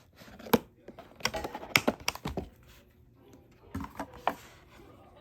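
Typing on a keyboard: irregular runs of keystroke clicks, a busy cluster in the first half and a few more taps around four seconds in.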